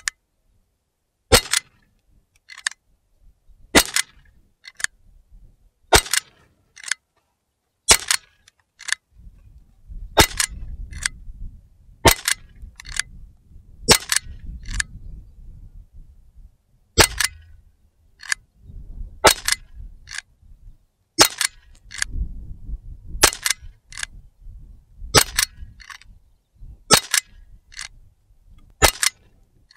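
Umarex Glock 17 CO2 BB pistol with blowback action, fired single shots about every two seconds, some fourteen sharp pops in all. Each shot is followed about a second later by a fainter click.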